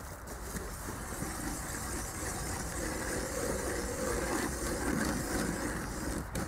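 Hand-cranked ice auger boring a hole through river ice: a steady grinding of the cutting blades in the ice as the handle is turned.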